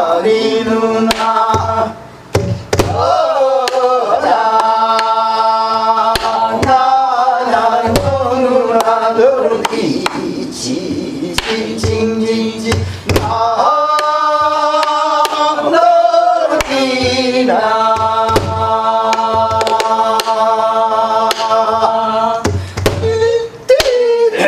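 Korean gueum: wordless singing in long held notes that bend and slide between pitches, accompanied by scattered strokes of a stick on a buk barrel drum.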